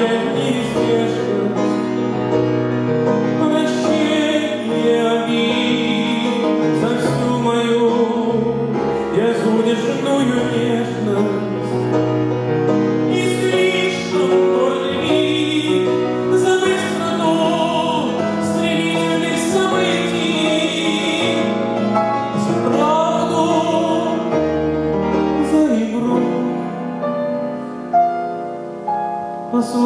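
A male tenor singing a slow song in Russian with vibrato on the held notes, accompanied by a grand piano.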